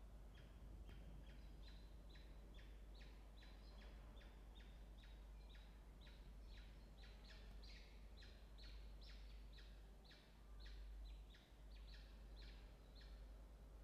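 Faint, steady series of short, high cheeps, about two a second, from newly hatched peregrine falcon chicks in the nest box, over a low steady hum.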